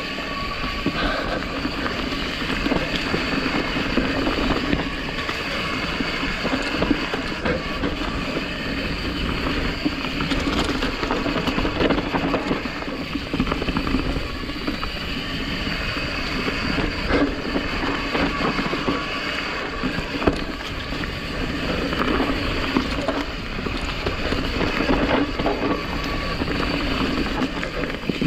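Mountain bike riding fast down a dirt trail: steady tyre and wind noise, with the bike clattering on bumps and rocks in many short knocks.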